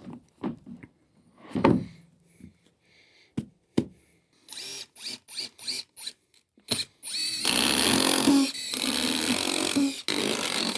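Cordless impact driver driving stainless steel screws into a deck board: a few clicks and short spurts of the driver at first, then from about seven seconds in a long, loud run as a screw is driven home, with two brief breaks.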